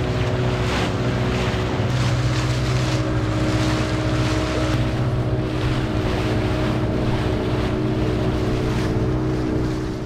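Motorboat engine running steadily under way, a constant hum with wind on the microphone. It fades out near the end.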